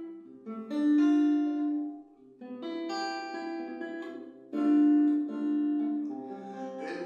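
Classical guitar playing an instrumental passage of plucked chords that ring and fade, with a new chord struck roughly every two seconds.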